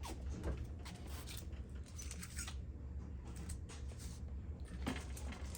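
Light clicks and rustling of wires and small plastic parts being handled, over a low steady hum.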